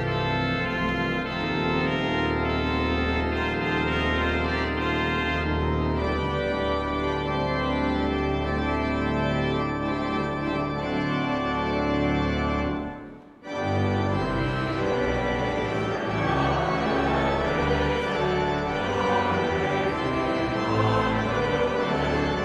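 Church organ playing a hymn in held chords. The sound breaks off briefly about 13 seconds in, then the organ comes back in.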